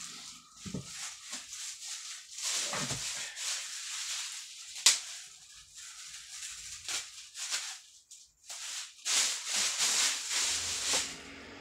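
Clear plastic wrapping crinkling and rustling in irregular bursts as it is pulled off a speaker cabinet, with one sharp snap about five seconds in.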